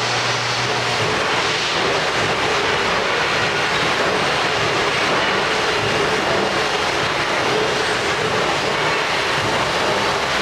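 Miyano BND-34S CNC lathe running, a loud, steady rushing noise with a faint low hum underneath and no pauses or changes.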